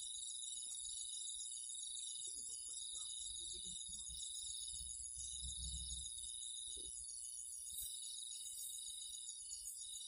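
Chorus of night insects, crickets among them, trilling steadily at several high pitches, with a faint low rumble about halfway through.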